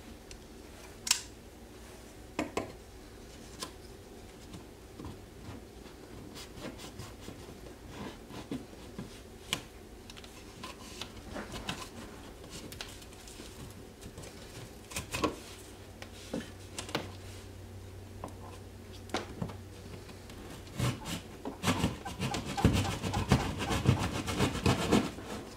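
A hand tool scraping and rasping at the edge of an outlet hole in a wall, enlarging it to fit a plastic electrical box. Scattered scrapes and knocks give way, about 21 seconds in, to a faster, louder run of rough strokes.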